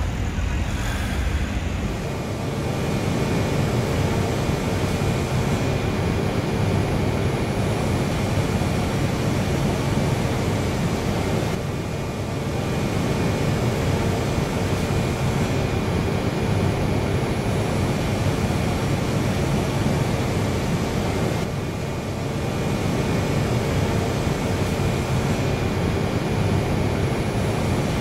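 Steady whirring hum of a passenger train standing at a station platform, with a couple of held tones in it, from its onboard equipment running. Street traffic is heard briefly at the start.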